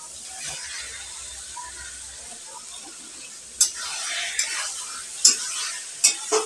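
Raw mutton and potato pieces going into hot masala in a metal kadai, with a faint sizzle. About three and a half seconds in, a spatula starts stirring: several sharp metal knocks against the pan over a louder sizzle.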